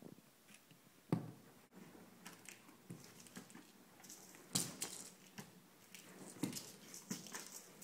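Oriental shorthair cat batting a small toy mouse across sofa upholstery: irregular soft thumps and scratchy rustles of paws and toy on the fabric, the loudest knock about a second in and more clustered around the middle and near the end.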